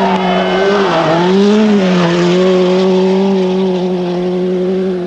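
Rally car engine running hard at high revs. The note dips and climbs again about a second in, then holds steady.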